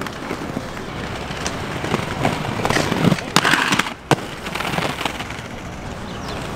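Aggressive inline skates rolling and clattering on concrete, with several sharp knocks; the loudest is a scraping patch about three and a half seconds in, followed by a single sharp clack just after four seconds.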